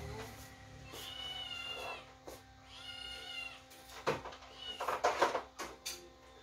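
Two drawn-out, high-pitched animal cries, each about a second long, followed in the second half by a few knocks and clatters of household objects being handled.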